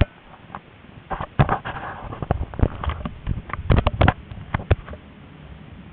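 Irregular clatter of sharp knocks and clicks aboard a moving tram, about fifteen of them bunched between about one and five seconds in, over a quiet running hum.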